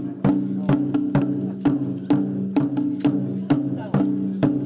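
Japanese festival percussion: sharp wooden clacks about twice a second, in an even beat, over a steady low hum.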